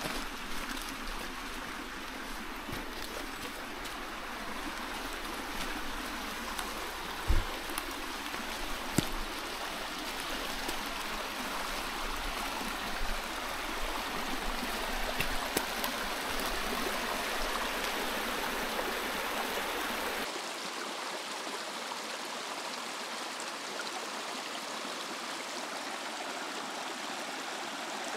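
Small snowmelt stream running steadily. A few sharp knocks sound in the first half, the loudest about seven seconds in, and a low rumble under the water stops abruptly about twenty seconds in.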